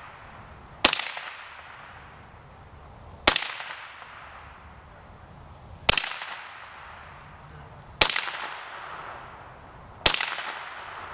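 Five single shots from a .22-calibre Remington 597 semi-automatic rifle, fired about two to two and a half seconds apart. Each sharp crack is followed by an echo that fades over a second or two.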